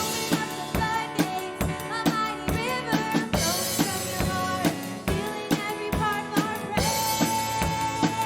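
A worship band playing a praise song. The drum kit keeps a steady beat with kick, snare and rimshots under a pitched melody line, which holds one long note near the end.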